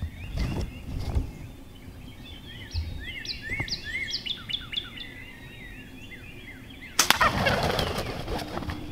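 Songbirds chirping. About seven seconds in, a sudden loud burst of rapid, heavy wing flapping and thrashing lasts about a second and a half: a wild turkey gobbler flopping after being hit by an arrow.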